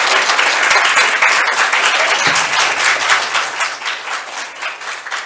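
Audience applauding: many hands clapping in a dense patter that thins out in the last second or two.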